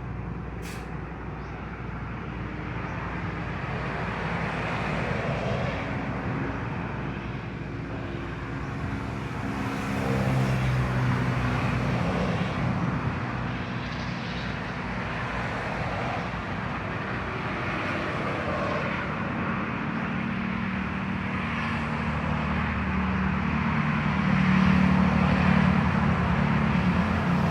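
A steady engine hum with traffic-like noise. It grows louder about a third of the way in and again near the end, as if vehicles draw closer.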